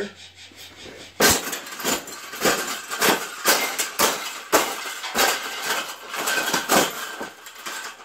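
Round wire bird cage being stamped on repeatedly, about two stomps a second from a second in, its metal wires clanking and rattling as it is crushed flat.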